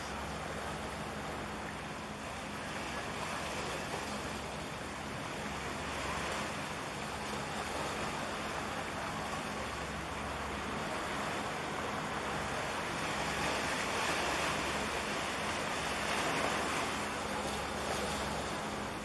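Sea waves washing against the harbour shore, with wind on the microphone: a steady rushing hiss that grows a little louder in the second half, over a faint low hum.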